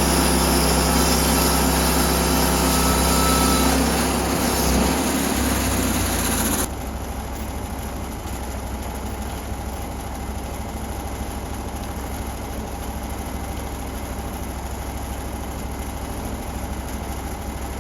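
Norwood portable band sawmill's gas engine running hard while the blade makes the first cut through an oak log. About seven seconds in the sound drops abruptly to a quieter, steady engine run.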